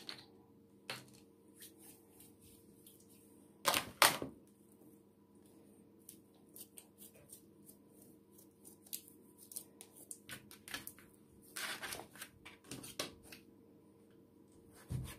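Faint handling of bread dough on a plastic bowl and cutting board: two soft knocks about four seconds in, then scattered light clicks and taps. Near the end comes a closer run of clicks as a knife cuts the dough into pieces on the board, over a faint steady hum.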